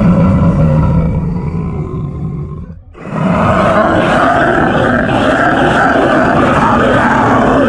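Horror sound effect: a loud, deep, monster-like roar that fades away just under three seconds in, followed almost at once by a second dense roaring sound that holds steady.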